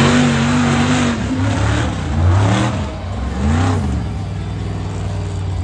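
A vehicle engine revving. It holds high for about a second, drops back, gives two shorter blips of throttle around the middle, then settles to a steady idle.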